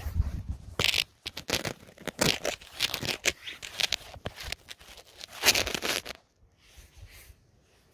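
Irregular scraping and crunching of loose dirt and grit against a phone and rubbing of fingers on it as it is set down and pressed into the ground; the noises stop about six seconds in.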